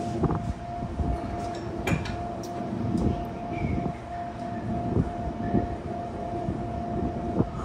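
Scattered metal clicks and knocks as a wrench works the rear axle nut of a Harley-Davidson Street Bob, over a steady hum.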